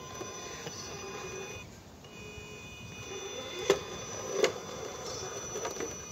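RC rock crawler's electric motor and geartrain whining under load as it climbs, cutting out for a moment about a second and a half in and then resuming. Two sharp knocks come about a second apart midway, as the truck bumps against rock.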